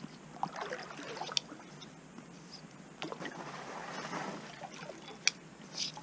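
Kayak paddle strokes in calm river water: the double-bladed paddle's blades dipping and swishing through the water in uneven surges, with a couple of sharp clicks.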